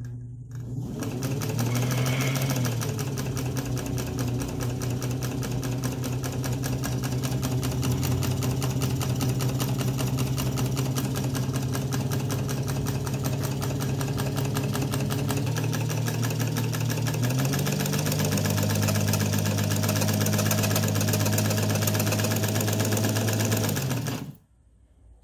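1920s Domestic sewing machine running with a fast, steady needle clatter over a hum. It winds up at the start, picks up speed about two-thirds of the way through, and stops suddenly shortly before the end.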